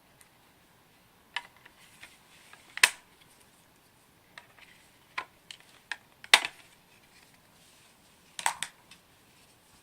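Hands handling a mini PC and its small parts: a series of sharp clicks and taps. The loudest come about three seconds in and again about six seconds in, with a quick cluster of clicks near the end.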